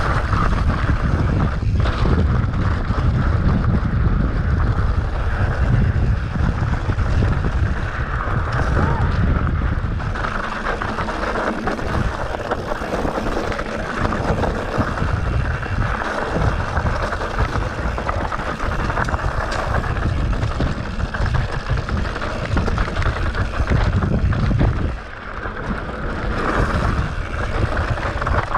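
Wind rushing over the microphone and the clatter of a mountain bike rolling down a dirt trail, with a few sharp knocks from the bike over rough ground. The noise eases briefly near the end.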